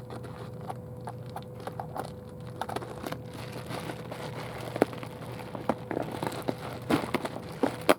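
Bubble wrap being handled and unwrapped from packaged items: plastic crinkling with scattered, irregular sharp crackles, a few louder ones in the second half.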